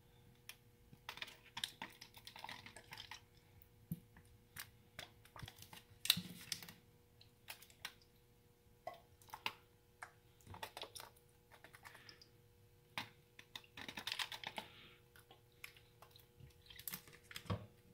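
Faint scattered clicks and short rustling hisses as a plastic squeeze bottle of lemon juice is squeezed and squirted over fish fillets lying on aluminium foil.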